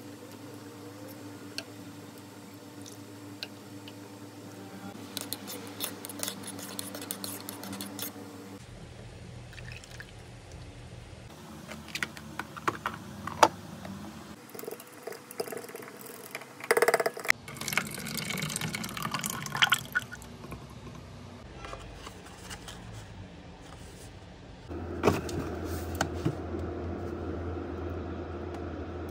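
Kitchen preparation sounds across several short cuts: a milky liquid mixture being poured and stirred, with clinks and knocks of utensils and containers.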